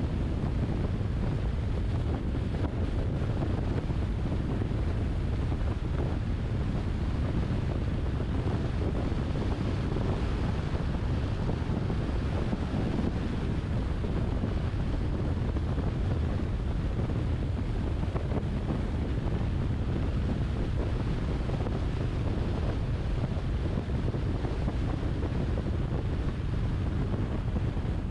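Steady wind noise on the microphone and road rumble from a car driving at speed on an open road. The noise is even and unbroken, heaviest at the low end.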